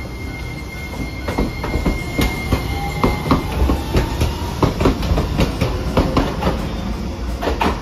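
Hiroden 5100-series Green Mover Max articulated low-floor tram passing close by. Its wheels clack over the rail joints about three to four times a second, over a low running rumble, with a faint rising motor whine as it gathers speed.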